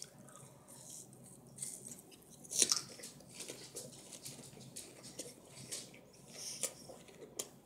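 A person biting into a pear, then chewing it with mouth closed. A sharp bite at the start is followed by faint chewing with a few louder clicks, the strongest about two and a half seconds in.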